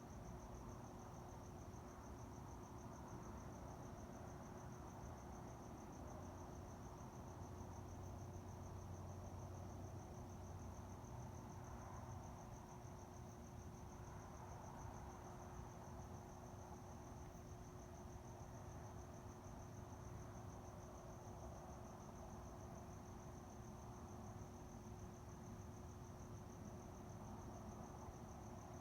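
Crickets trilling steadily, a faint continuous high-pitched trill, over a low steady hum.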